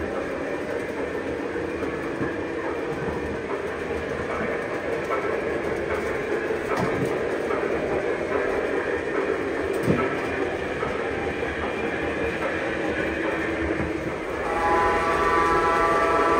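Lionel model train running along its track with a steady rumble and a sharp click about ten seconds in. About fourteen and a half seconds in, its sound-system whistle starts and holds a chord of several steady tones.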